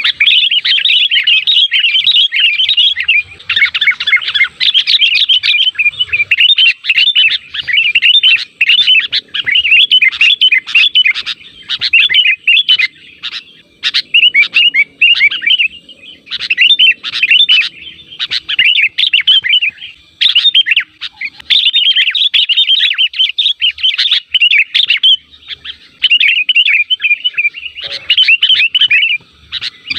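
Sooty-headed bulbul (kutilang) song: a dense stream of quick, bright chirping phrases in bouts broken by short pauses.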